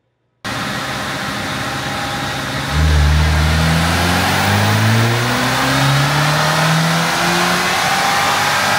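Ford Maverick's turbocharged 2.0 L EcoBoost four-cylinder, breathing through an aFe intake and cat-back exhaust, making a run on a chassis dyno: a steady run from about half a second in, then from about three seconds in it gets louder and the revs climb gradually.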